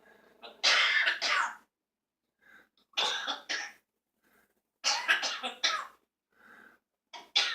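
Pet bird coughing in short bouts of two or three coughs, about every two seconds, which the owner takes for a bad cold.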